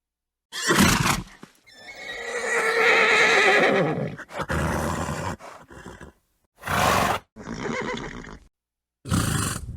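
A horse snorts, then neighs for about two seconds with a quavering, wavering pitch, followed by several short snorts or blows through the nostrils.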